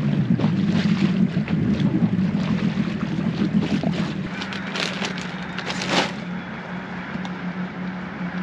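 A dinghy's small outboard motor running under way with wind and water noise, then settling to a steady low idle hum about halfway through. A few light clicks and a short knock come about six seconds in.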